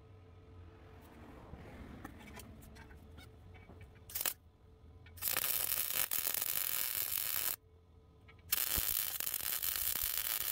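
Hissing spray of pressurised gas: a short puff about four seconds in, then two long bursts of about two and a half seconds each, with a pause between. Light clicking comes before them.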